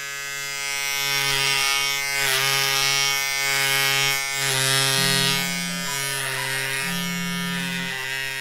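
Electric hair clippers buzzing steadily while cutting the hair at the back of the neck short. The hum shifts in pitch a few times as the blades work.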